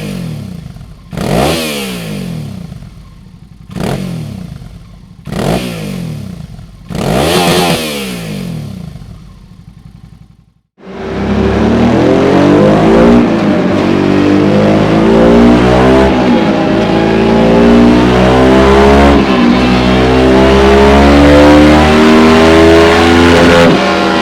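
Suzuki DL650 V-Strom's 645 cc V-twin breathing through a Dominator aftermarket muffler. Five throttle blips come from idle, each revving up sharply and dropping back. After an abrupt cut there is a long, loud run under load, the engine note slowly climbing in pitch, as on a dyno pull.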